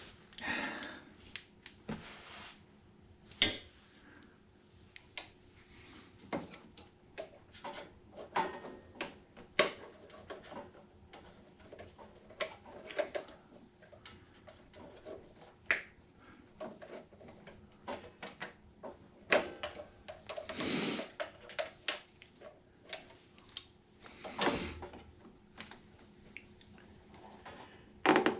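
Hand tools and small metal parts clicking, clinking and knocking irregularly as a portable generator is worked on, with a couple of longer scraping sounds past the middle.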